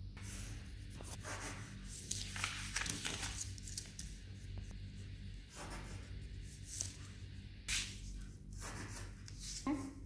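Pencil scratching on paper as lines are drawn along a ruler and gone over to darken them: a series of strokes, each a second or less, with short pauses between, over a steady low hum.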